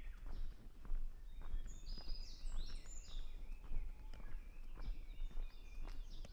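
Japanese bush warbler (uguisu) singing, a run of quick high notes and glides in the middle, over footsteps and knocks on the path.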